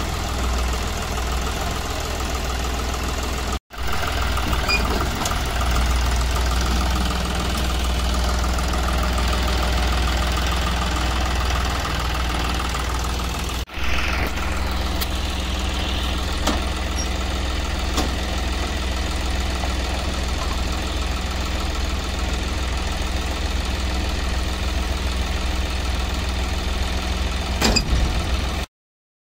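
Greengold combine harvester's diesel engine running steadily with a low, even drone, its drives turning over. The sound cuts out briefly twice and stops abruptly near the end.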